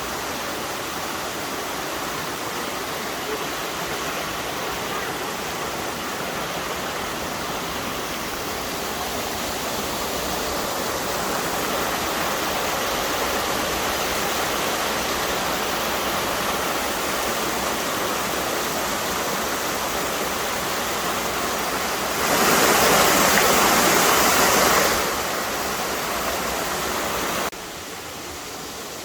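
Water rushing over a waterfall in a steady, even hiss. It gets louder about ten seconds in, swells sharply for about three seconds near the end, then drops suddenly.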